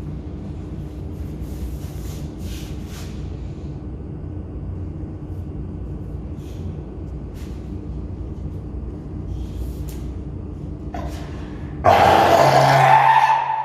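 A steady low background hum, then near the end a sudden loud, harsh call from a South American fur seal, about two seconds long.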